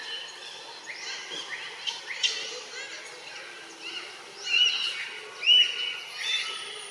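Birds chirping and calling in the trees, with many short rising and falling notes overlapping, and two louder calls about four and a half and five and a half seconds in.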